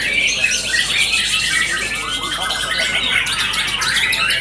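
White-rumped shamas singing, several songs overlapping at once: a dense, unbroken stream of fast whistles, chirps and rattling trills.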